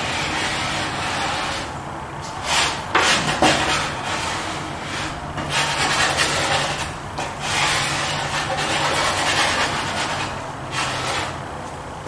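Pastel stick rubbed across pastel paper in quick back-and-forth strokes, a scratchy rasping that comes in uneven spells, loudest about three seconds in.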